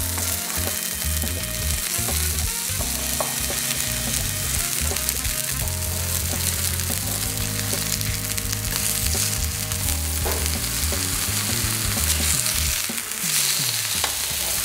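Red snapper fillets sizzling steadily in hot oil on an electric griddle plate over medium-high heat, while a metal spatula turns and moves them.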